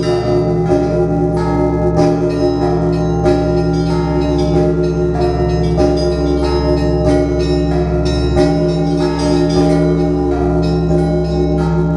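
Church bells ringing, several bells struck one after another in quick succession, their tones overlapping into a continuous ringing with a deep hum beneath.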